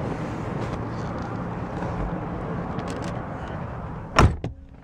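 Rustling and movement as someone climbs into the back seat, then the rear door of a 1993 Cadillac Sedan DeVille is pulled shut with one loud slam near the end, a lighter knock right after, and the surroundings much quieter once it closes.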